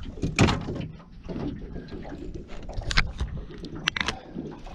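Knocks and clatter of a landing net and gear being handled aboard a small fishing boat as the net is readied for a hooked fish: several sharp strikes, the loudest about half a second in and more near the end, over a steady low rumble.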